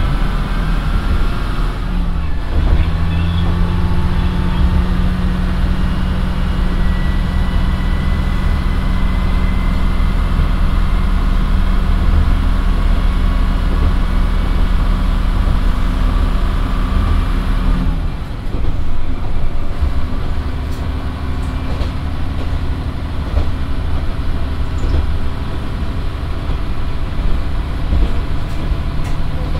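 Nissan Diesel PF6HT03 six-cylinder diesel engine of a railcar pulling hard under acceleration, heard loudly from inside the cabin. Its note changes abruptly about two seconds in as the transmission shifts from the first to the second torque-converter stage. About eighteen seconds in, the engine note falls as it locks up into direct drive. Wheels clatter over the rail joints, most plainly after the last shift.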